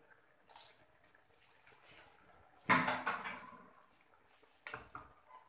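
Faint snips of kitchen scissors cutting green chilies over a pan, then one louder clatter of kitchen handling about three seconds in, and two light knocks near the end.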